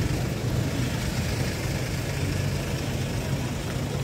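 Steady low hum of an engine idling, over even outdoor background noise.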